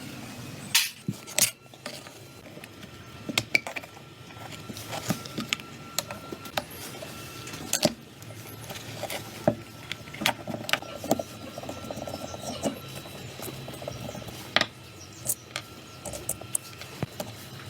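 Irregular sharp clicks and knocks from hand work on metal and plastic parts, about one or two a second, over a faint steady hum.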